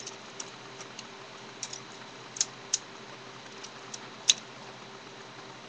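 Plastic Lego pieces clicking and knocking as a Lego-built butterfly knife's handles are swung around and closed: a few scattered sharp clicks, the loudest about four seconds in.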